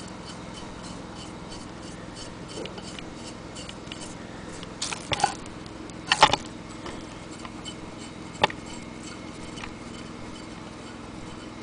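Small metal clicks and clinks as the crank handle of a Willcox & Gibbs hand-crank sewing machine is taken off its cast-iron handwheel and handled. A cluster of sharper clinks comes about five to six seconds in, and a single one near eight and a half seconds. Under it all are a steady low hum and a faint even ticking, about four ticks a second.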